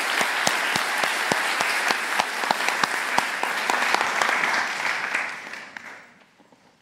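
Audience applauding: many hands clapping in a dense, steady patter that tapers off and dies away about six seconds in.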